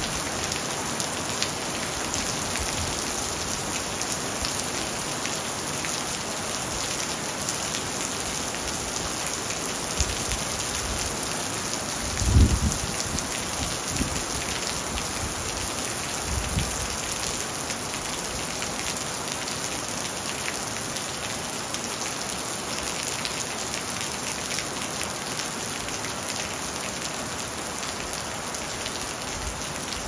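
Steady rain falling, a continuous hiss with a fine patter of individual drops. A low thump about halfway through is the loudest sound, followed by a couple of weaker ones.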